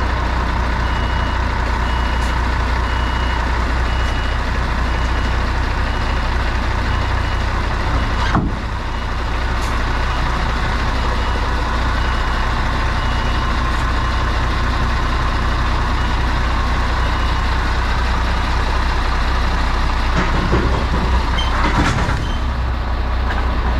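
HGV tractor unit's diesel engine running as it reverses slowly under a trailer to couple up, with the reversing alarm beeping steadily for the first eight seconds or so. A sharp click about eight seconds in, and a few knocks near the end as the fifth wheel takes the trailer's kingpin.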